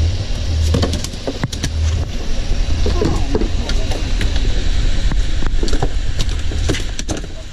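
Fishing boat's engine running with a steady low drone, with scattered sharp knocks and clatter over it.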